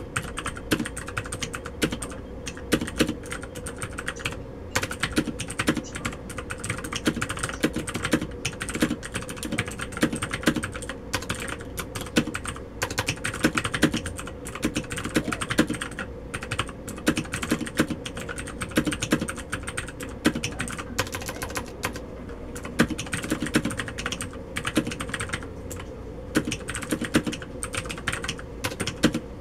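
Typing on a Tt eSports Poseidon Z Plus Smart mechanical keyboard: a dense, continuous run of key clicks with frequent louder strokes.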